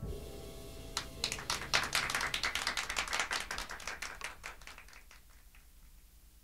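Clapping from a small audience after a song, many irregular claps that die away over a few seconds.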